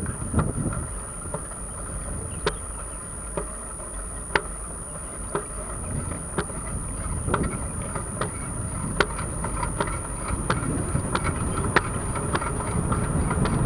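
Wind and road rumble on a bicycle-mounted action camera's microphone while riding, with sharp clicks from the bicycle about once a second that come faster toward the end. A steady high whine sits under it.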